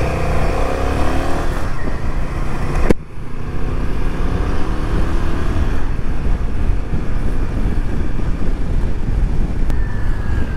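Road noise from a motorcycle ride in traffic: a steady low rumble of engine and road sound. An engine note rises in pitch over the first couple of seconds, and the sound shifts abruptly about three seconds in.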